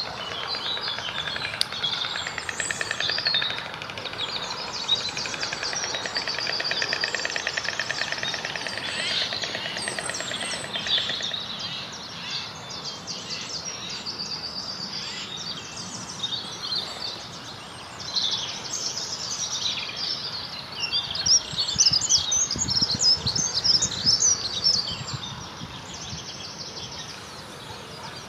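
Small songbirds singing and chirping, with many high trills and calls overlapping, and a louder flurry of chirps about three-quarters of the way in.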